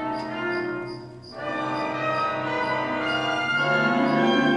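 Orchestral background music with long held notes, dipping briefly about a second in.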